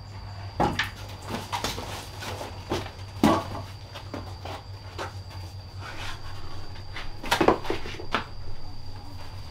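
Irregular knocks and clatters of objects being handled, about ten over several seconds. The loudest come a little over three seconds in and about seven and a half seconds in.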